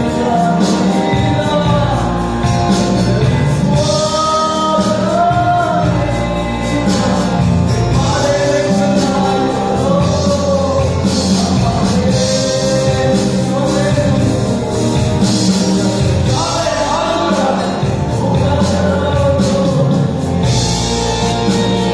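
A singer performing a song over amplified band accompaniment, the voice carrying the melody above a steady bass and drum beat.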